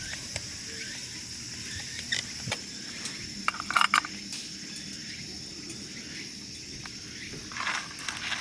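Insects chirring steadily in a high, even pitch, with a few scattered clicks and a brief clatter of something being handled about three and a half seconds in.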